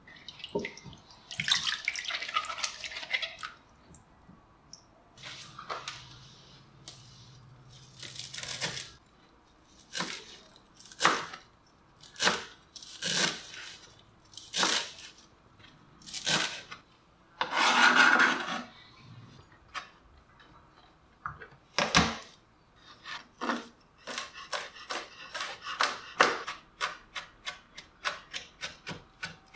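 Cucumbers rubbed and swished by hand in a glass bowl of water, then a kitchen knife cutting on a plastic cutting board: single strokes about a second apart, and near the end a fast, even run of taps as garlic is minced.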